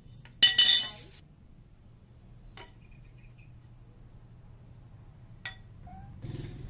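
Steel angle bar clattering against the metal cutting stand about half a second in, as the cut-off piece is pulled away, followed by a couple of light metal taps. Near the end a steady rubbing noise begins.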